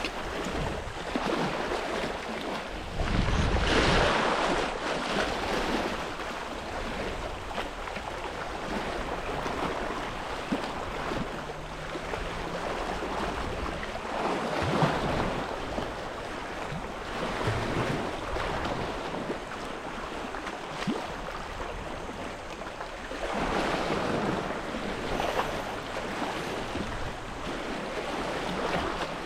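Sea surf washing against a rocky shore, swelling into louder surges every several seconds, with wind buffeting the microphone.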